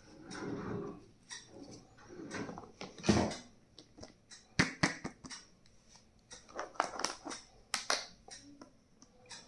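Stationery and its packaging being handled and unpacked: scattered sharp clicks and knocks of small plastic parts, with stretches of rustling.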